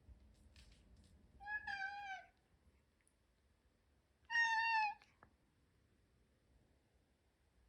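A domestic cat meowing twice, about three seconds apart; the second meow is shorter and louder.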